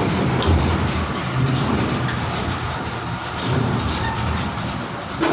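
Heavy truck driving up a roll-on/roll-off ferry's steel loading ramp, its diesel engine a steady low rumble.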